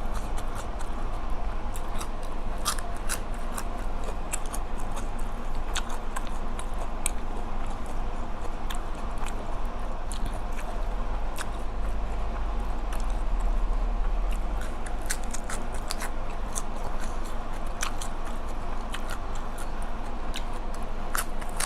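Close-up chewing of spicy red ant egg salad, with many short wet clicks and crunches from the mouth over a steady low hum.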